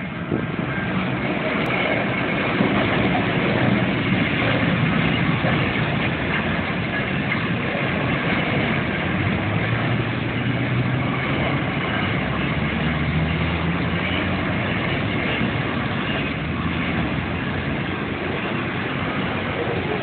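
Freight train hauled by three Pacific National NR class GE diesel-electric locomotives passing at speed, a steady rumble of engines and wagons on the rails that swells as the locomotives reach the crossing.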